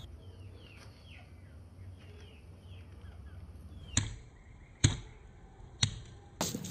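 Stone pestle pounding ginger and garlic on a grooved stone mortar: three sharp strikes about a second apart, the middle one the loudest. Before them, faint high falling chirps sound in the background.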